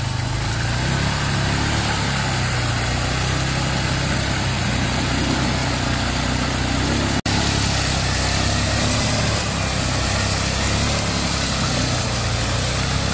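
ATV (quad bike) engine running steadily as the quad works its way through deep mud ruts, with a momentary cut in the sound about seven seconds in.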